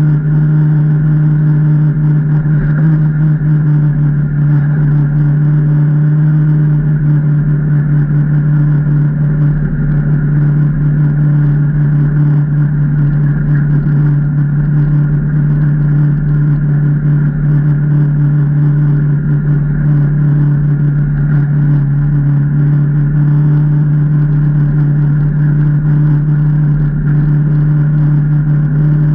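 Can-Am Maverick Trail 800 side-by-side's Rotax V-twin engine running at a steady speed, with an even, unchanging pitch and no revving.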